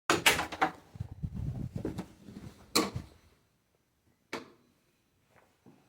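Several sharp clicks and knocks, with low rumbling in between, in a small room.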